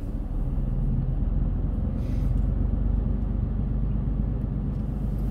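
Semi-truck's diesel engine running steadily at low speed while the truck moves slowly through a yard, heard from inside the cab; it gets a little louder about half a second in.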